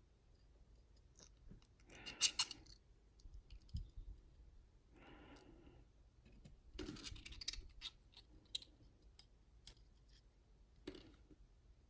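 Small metallic clicks and scrapes from the pins and springs of a US Star dimple lock being taken out of its cylinder. The loudest cluster of clicks comes about two seconds in, more follow around seven seconds, and a last single click comes near the end.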